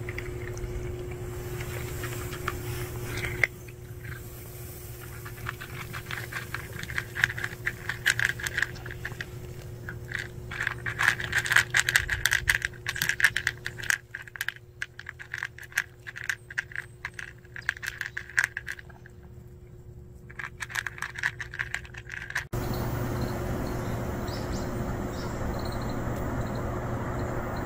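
A cat crunching dry kibble from a plastic tray: a long, irregular run of small crackling clicks, thickest in the middle. Near the end it gives way suddenly to a steady outdoor hiss.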